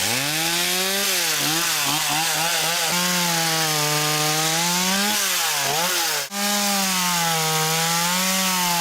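Chainsaw running under load, cutting through wood. Its engine pitch dips and recovers again and again as the chain bites, with a brief break about six seconds in.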